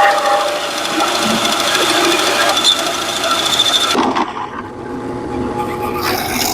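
A power tool running with a steady whine, working a small piece of wood or a bolt; it cuts off about four seconds in, leaving a lower hum, with a brief loud burst near the end.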